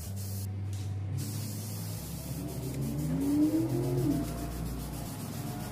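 Aerosol spray-paint can hissing as paint is sprayed in bursts; the hiss stops for under a second about half a second in, then resumes. Background music runs underneath.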